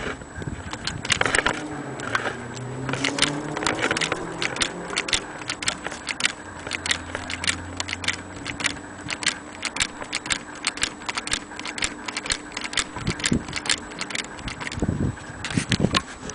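Child's antique hand-crank Fairylite toy sewing machine being cranked: a steady run of light mechanical clicks, about three a second, as the needle stitches through denim. A faint hum falls in pitch behind it in the first few seconds.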